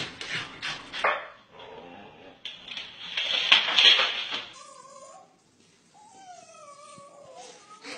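Dogs yapping in short, quick bursts, then a dog whining in long, wavering glides that rise and fall.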